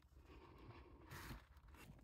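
Near silence, with faint rustling and a soft scrape about a second in.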